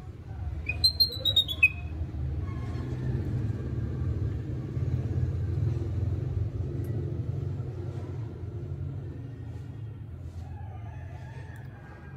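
Baby monkey giving a quick run of high-pitched squeals about a second in, over a steady low rumble that fades toward the end.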